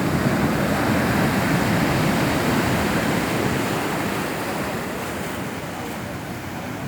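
Atlantic surf washing onto a beach, a steady rushing of breaking water that is louder in the first few seconds and eases off in the second half.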